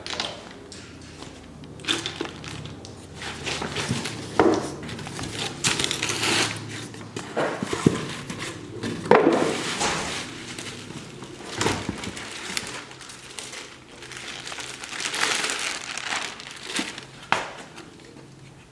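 Irregular rustling, crinkling and sharp clicks of small plastic parts being handled: car bulbs and tail-light housings, with louder bursts every second or two.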